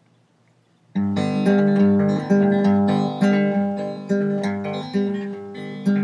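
Acoustic guitar strummed in a steady rhythm, with an accented strum about once a second, starting abruptly about a second in after near silence.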